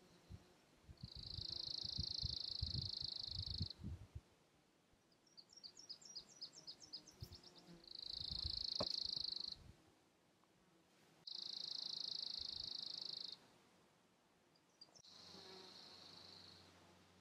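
High-pitched buzzing trills from wildlife, heard four times, each one to three seconds long, with a quick run of rising chirps between the first two. Wind rumbles on the microphone during the first trill.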